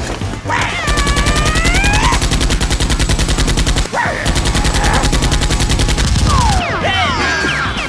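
Two long bursts of rapid automatic gunfire with a short break about four seconds in: a machine-gun sound effect laid over the film's fight.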